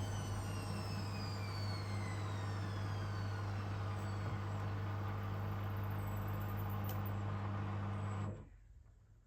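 Beko washing machine with an empty drum spinning down at the end of a spin. A steady low motor hum runs under a whine that falls steadily in pitch as the drum slows. The sound then cuts off abruptly about eight seconds in.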